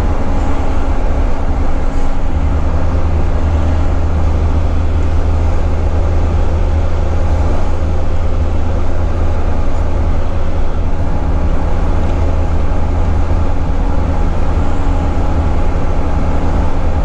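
Volvo FH12 480 truck's 12-litre straight-six diesel engine running steadily at cruise with a deep, even drone, heard from inside the cab along with tyre and road noise.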